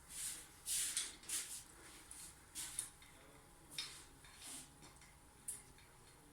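Light, irregular ticks and clinks of small parts and tools being handled during engine assembly, about eight in all, spaced unevenly.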